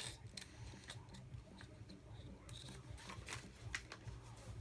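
Faint, scattered clicks and light rattles of small tools being handled, most likely a drill bit being fitted into a drill, over a steady low hum. The drill is not yet running.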